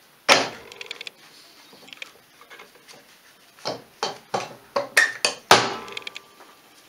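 Sharp metal knocks and clicks as a Polaris two-stroke engine's case cover is worked loose by hand and lifted off. There is one loud knock just after the start, then a quick run of about seven more between four and six seconds in, the last of them the loudest.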